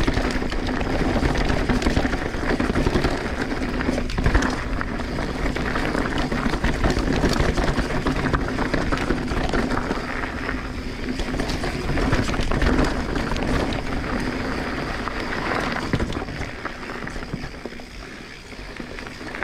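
Transition Sentinel full-suspension mountain bike ridden fast downhill on a dirt trail: a continuous rush of tyre and air noise with many rattles and knocks as it runs over rough ground, easing off and getting quieter near the end as the bike slows.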